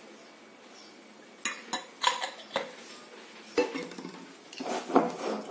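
Metal spoon stirring thick batter in a stainless steel pot, knocking and scraping against the pot's sides in a run of irregular clinks that starts about a second and a half in, with longer scraping strokes near the end.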